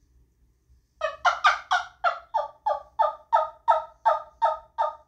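Wing Wood turkey yelper call played in a run of hen yelps: after about a second of quiet, some fourteen evenly paced notes, about three a second, the first few the loudest.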